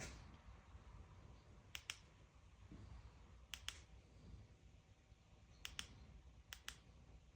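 Near silence broken by four pairs of light, sharp clicks, spread out over the few seconds.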